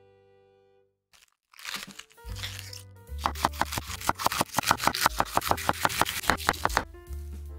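Kitchen knife finely shredding red cabbage on a wooden cutting board: quick, even crunching chops at about five a second, starting about two seconds in, over background music.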